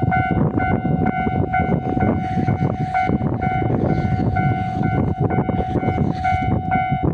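Railway noise: a loud, steady rumble with a single-pitched tone that sounds in short, regularly repeated pulses, of the kind a level-crossing alarm makes.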